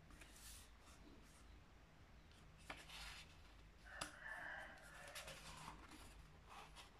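Faint rustling and sliding of a sheet of A4 printer paper handled by hand on a tabletop as it is smoothed and lifted for a fold, with a couple of light ticks and a short rustle about four seconds in.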